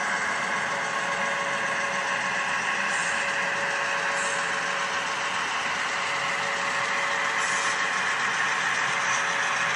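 HO scale model freight train running along the track: a steady mechanical hum that holds even throughout.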